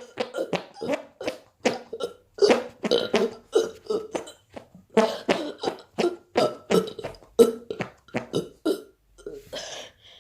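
A boy doing fake burps and armpit farts together: a quick run of short burp and fart sounds, two or three a second, with brief pauses between runs.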